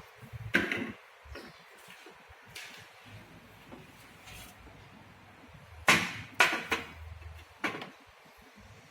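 Sharp clicks and knocks of small metal injector parts and tools being handled and set down on a bench: one about half a second in, then four in quick succession later on.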